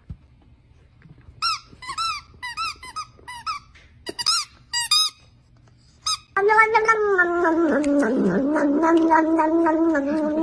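A dog biting a squeaky toy: a quick run of about ten sharp, high squeaks over three or four seconds. After a pause comes a long wavering pitched tone lasting about four seconds.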